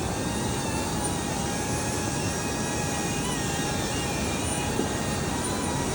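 Steady whir of an FPV drone's propellers over a rush of air, with a few thin, slightly wavering whine tones.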